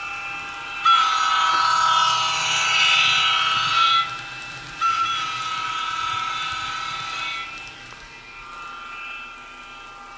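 Atlas N scale NJ Transit ALP electric locomotive's DCC sound decoder sounding its horn through the model's small speaker: a long blast starting about a second in and lasting about three seconds, then a second blast of a little under three seconds. A quieter steady electric-locomotive running sound from the decoder goes on underneath and continues after the horn.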